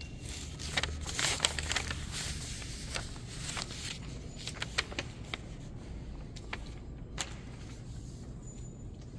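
Footsteps on a polished stone floor, irregular sharp clicks that are busiest in the first couple of seconds, with a last loud click about seven seconds in, over a steady low hum.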